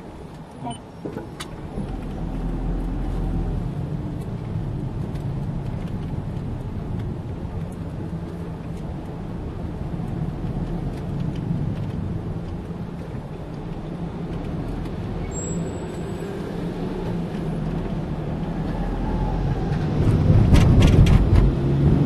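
Car engine and road noise heard from inside the cabin while driving, a steady low rumble that grows louder near the end.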